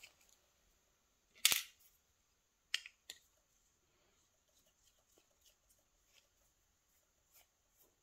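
Small metal clicks of a screwdriver tip working at the end of a Mottura pump lock cylinder as it is taken apart: one sharp click about a second and a half in, two lighter ones around three seconds in, then faint ticks.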